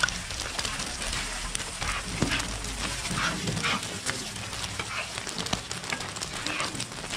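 Egg parottas sizzling on a large flat griddle, with a wide metal spatula scraping and clinking against the griddle at irregular moments as they are lifted and flipped.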